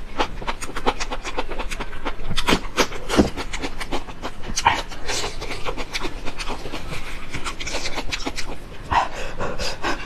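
Close-miked chewing of sauce-covered enoki mushrooms: a dense run of quick, wet mouth clicks with breathing.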